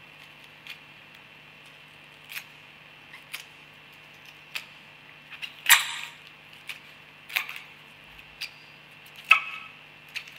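Onion being peeled by hand, layer by layer: irregular crisp cracks and crackles as the layers tear and snap, the loudest about six and nine seconds in, over a steady low hum.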